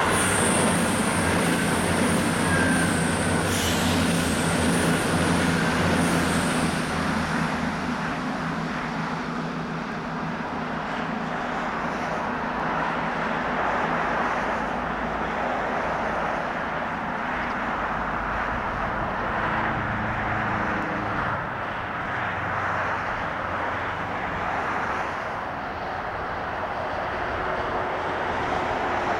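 Two coupled Voyager diesel multiple units passing, the steady drone of their underfloor diesel engines mixed with the rushing of road traffic on a dual carriageway alongside. A steady hum and a faint high whine die away about seven seconds in, leaving an even rush of noise.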